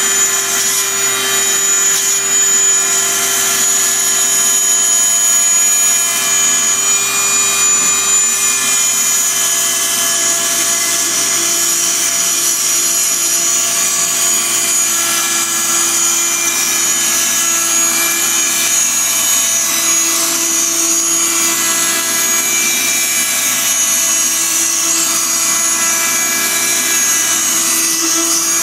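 Fein Multimaster oscillating multi-tool running steadily with a round grout blade grinding out the grout between tiles: a loud, even buzz with a grating edge. Its pitch drops slightly about ten seconds in.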